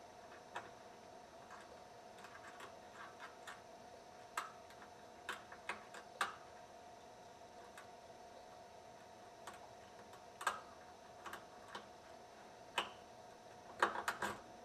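Lock pick and tension wrench working the pin tumblers of a deadbolt cylinder: small irregular metallic clicks and ticks, with a quick cluster of clicks near the end.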